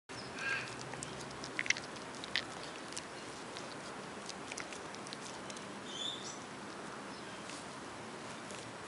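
Ten-week-old Cardigan Welsh Corgi puppies play-fighting, one mouthing and chewing on the other: small, sharp clicks and rustles on the grass, with a couple of brief high squeaks.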